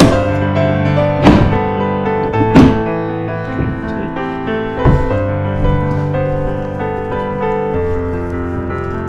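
Background piano music of held notes, broken by three sharp knocks about one, two and a half, and five seconds in.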